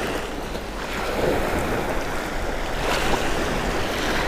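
Small surf breaking and washing up on a sandy beach at the shoreline, a steady rush of water, with wind on the microphone.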